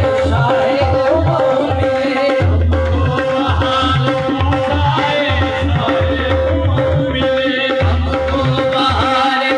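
Qawwali music: harmoniums holding a steady drone while hand drums keep up a rhythm.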